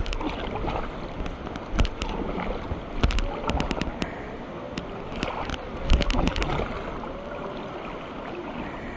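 Kayak paddle strokes on a river: irregular splashes of the paddle blades entering the water, over a steady wash of water running along the hull.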